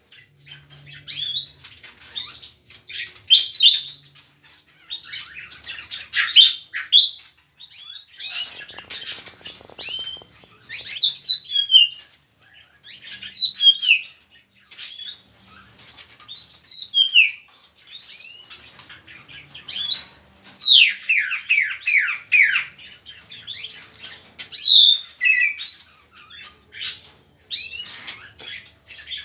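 Tropical mockingbird (sinsonte) singing a long, varied song of quick whistled phrases, many of them falling in pitch, with a fast run of repeated falling notes about two-thirds of the way through.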